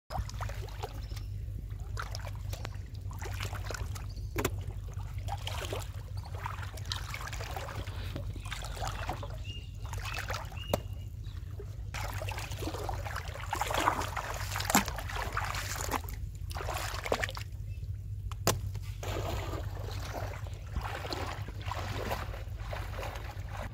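Shallow pond water splashing and sloshing in irregular bursts as a person wades and moves a plastic basin through it, with a few sharp knocks, over a steady low hum.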